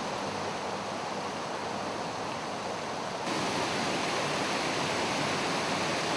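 Water pouring over a low concrete weir: a steady rushing, stepping up louder a little past halfway.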